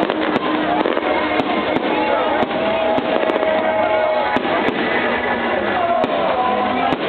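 Fireworks display: dense, continuous crackling with many sharp pops and bangs, over held and gliding tones.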